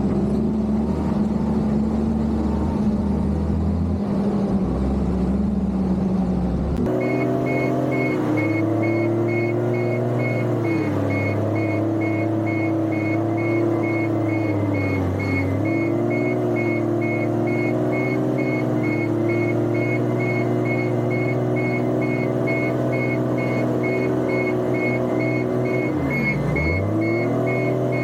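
Case motor grader's diesel engine running under working load. Its pitch sags briefly and recovers several times as the blade takes load. About seven seconds in the sound changes abruptly, and a high, rapidly pulsing tone joins it.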